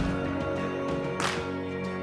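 Background music: held chords with a sharp beat at the start and a soft swish in the middle.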